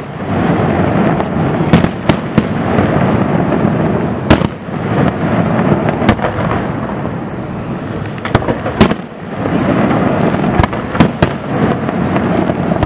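Aerial firework shells bursting in quick succession: a dozen or so sharp, irregularly spaced bangs over a continuous rumble.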